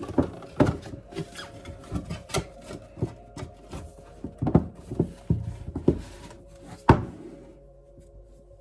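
Computer parts being handled on a work surface: irregular clicks, taps and rubbing, with the sharpest knock about seven seconds in, after which the handling thins out.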